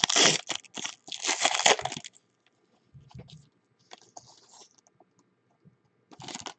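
Foil trading-card pack wrapper being torn open and crinkled in the hands, loudest over the first two seconds. Softer scattered rustling follows as the cards are slid out, with another short crinkle near the end.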